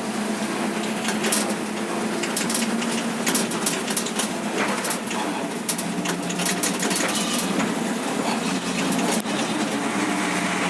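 ZiL-130 fire truck's V8 petrol engine running under way, a steady low drone with loose clicks and rattles from the truck's body throughout.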